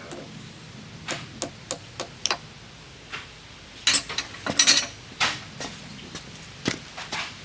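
Hammer tapping a pin punch to drive a small straight steel pin out of the drill press's counterbalance chain fitting: about a dozen sharp metal taps at an uneven pace, a quick run of five in the first seconds and another cluster about four seconds in.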